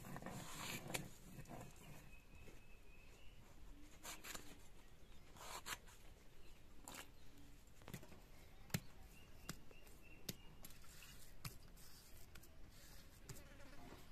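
Quiet, scattered cutting and scraping: a blade slicing through a raw brinjal, then a grinding stone working turmeric paste on a flat stone slab. The sounds come as short strokes a second or two apart, with a few sharp clicks.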